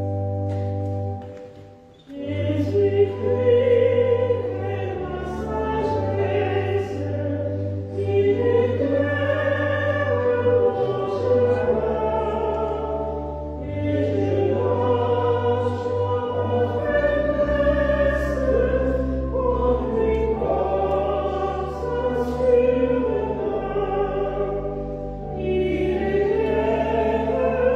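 Choir singing a hymn with organ accompaniment. A held organ chord dies away about two seconds in, then the voices come in over sustained organ bass notes that change every few seconds.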